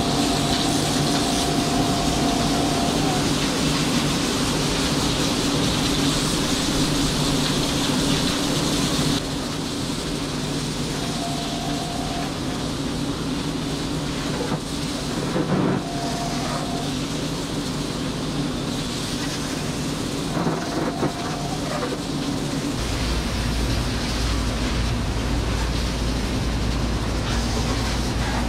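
A fire hose spraying water onto a robotic milking stall and its floor, over the steady hum of the milking robots running their wash cycle. The spray hiss is strongest in the first third. A few short steady tones sound at intervals, and a deeper hum comes in near the end.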